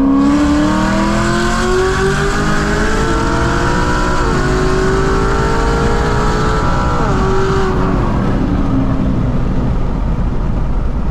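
Chevrolet SS's supercharged 6.2-litre V8 at full throttle, heard from inside the cabin. The pitch climbs and drops sharply three times as it shifts up through the gears, and the engine backs off near the end.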